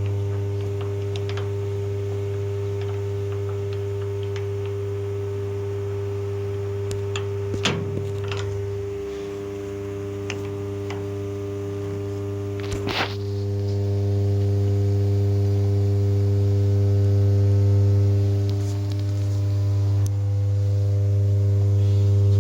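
Startrite table saw running free with no cut, a steady electric-motor hum with a strong low tone and overtones. A couple of brief clicks sound about 8 and 13 seconds in.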